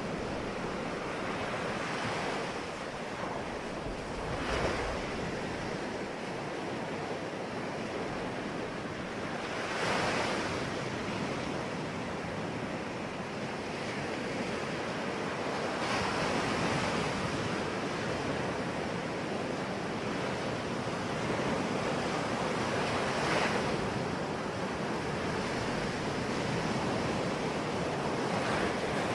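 Ocean waves breaking on a shore: a steady wash of surf, with a wave cresting and rushing in about every six seconds.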